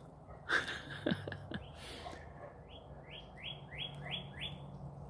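A bird singing a quick run of about six short notes, each dropping in pitch, in the second half, after a few short pops near the start.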